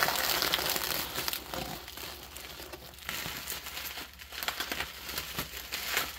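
Bubble wrap crinkling and crackling as a hand pushes paper filler sheets in among it inside a cardboard shipping box. It is loudest for about the first second, then goes on in softer, patchier crackles.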